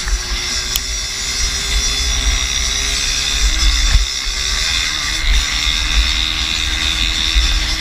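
50cc moped engine running hard at steady high revs, the pitch dipping briefly about three and a half seconds in and then picking up again, with wind rumbling on the microphone.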